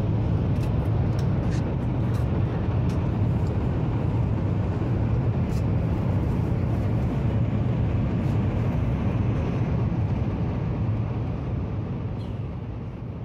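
Steady low rumble inside a Shinkansen bullet-train car running at speed, with a few faint clicks.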